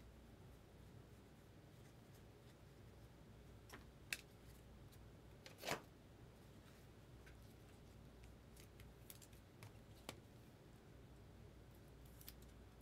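Mostly near silence, broken by a few faint clicks and one short rustle about halfway through, from trading cards and packs being handled on a desk.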